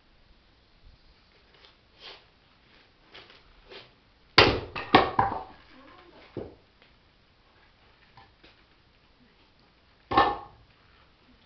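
A 2.5 kg splitting maul strikes a log on a chopping block about four seconds in, with a second sharp knock half a second later as the wood gives and falls. Another loud wooden knock comes near the end, with quieter shuffling and light knocks between.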